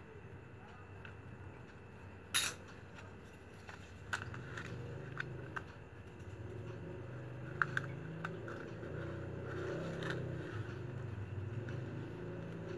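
Scissors snip through a woven plastic packing-strap panel with one sharp click a couple of seconds in. The woven strips are then handled and pressed, giving scattered light clicks and crackles over a low wavering hum.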